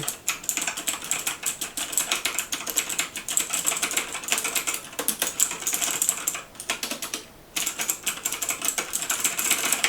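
Fast typing on an Azio MGK1 mechanical keyboard with clicky Kailh Blue switches: a dense, quick run of key clicks, with a short break about seven seconds in.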